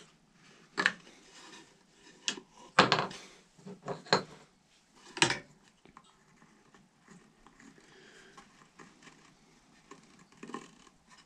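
Knocks and clicks of a hickory ramrod and a small marking tool being handled against a wooden jig on a workbench: about five sharp knocks in the first five seconds or so, then only faint small clicks.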